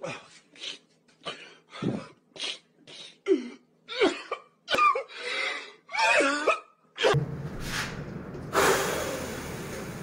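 A man crying: a run of short gasping sobs and sniffs, a few breaking into wavering wails, stopping about seven seconds in. After that a steady rushing noise, louder for a moment near the end.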